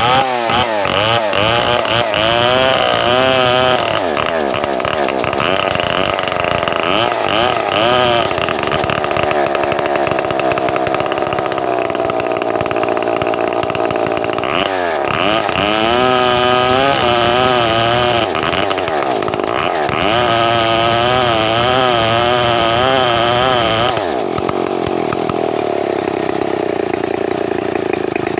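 Stihl 070 two-stroke chainsaw running at high revs, its engine pitch wavering up and down in stretches as it cuts lengthwise through timber. It drops to a lower, steadier note near the end.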